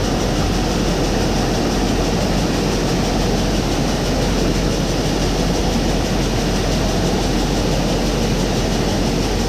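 A heavy engine running steadily, a continuous even drone with a constant low hum.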